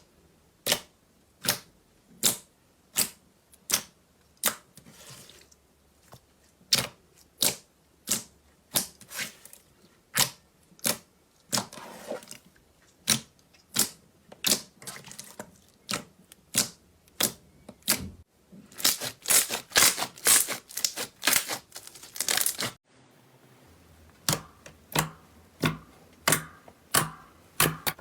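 Slime being poked and squeezed, giving a run of sharp pops and clicks about one or two a second, with a denser, louder cluster of crackling pops a bit past two-thirds through.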